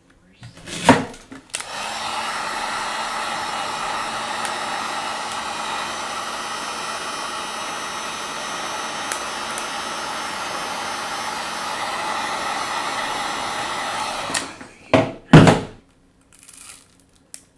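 A heat gun blowing steadily for about thirteen seconds to soften the adhesive holding the tablet's digitizer glass. A knock comes just before it starts, and a few loud knocks follow right after it stops.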